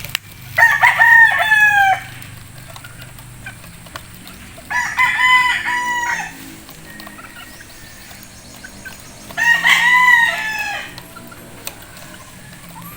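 Rooster crowing three times, each crow about a second and a half long, a few seconds apart.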